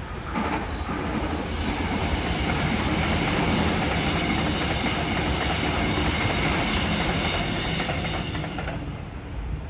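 Double-deck electric suburban train of Sydney Trains passing close by: wheels running on the rails, with a faint high steady whine over the noise. It builds about half a second in and drops away after about nine seconds as the last carriages go by.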